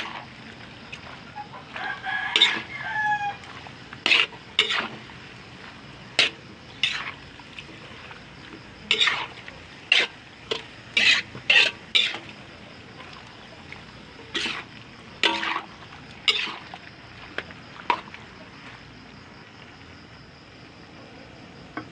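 Metal spatula scraping and stirring chopped pork in a wok, in short irregular strokes. A rooster crows once about two seconds in.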